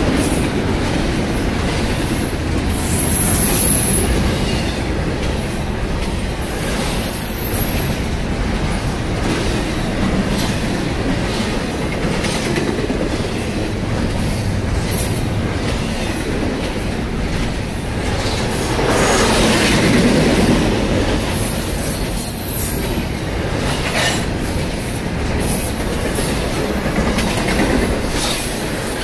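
Double-stack intermodal well cars rolling past close by: a steady rumble and clatter of wheels on the rails, swelling briefly about two-thirds of the way in, with short high wheel squeals now and then.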